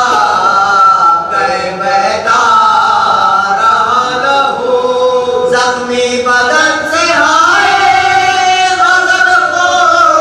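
Male voices chanting a mourning lament in Urdu, long held notes that slide from one pitch to the next.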